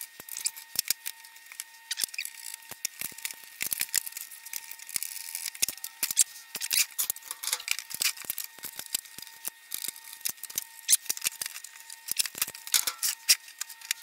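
Rapid, irregular clicks and small metallic rattles of screws and sheet-metal parts being handled as a beige Power Mac G3 case is taken apart for a motherboard swap, over a faint steady high tone.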